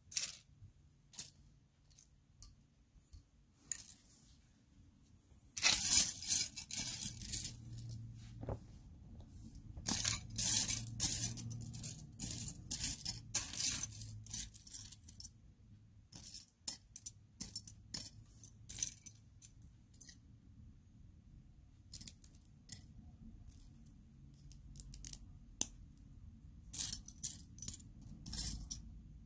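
Small plastic Lego pieces clattering and clicking as they are sifted and handled, in two busy spells of rattling with scattered single clicks between.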